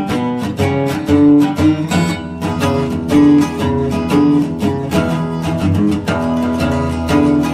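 Background music: acoustic guitar picking and strumming in a steady rhythm.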